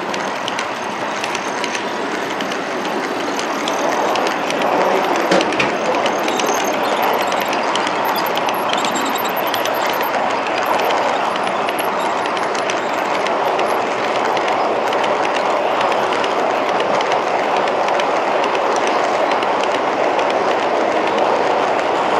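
H0-scale model freight wagons rolling along the track: a steady rolling rattle with many small clicks of the wheels over the rail joints, a little louder about four seconds in.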